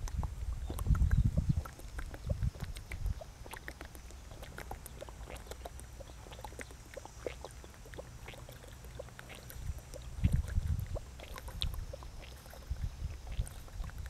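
Close-up eating sounds: chewing, smacking and small crunchy clicks of food in the mouth, with low rumbles about a second in and again around ten seconds. A faint, steady cicada drone sits behind.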